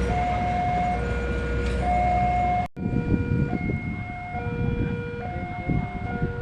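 Electronic two-tone warning alarm, alternating steadily between a higher and a lower tone about once a second. After a brief break about a third of the way in, a low rolling rumble runs beneath it.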